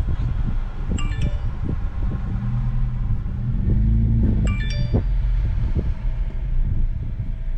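Steady road and engine rumble inside a moving Subaru, the engine note rising and falling once around the middle. Two short electronic chimes of several bright tones sound about a second in and again about four and a half seconds in.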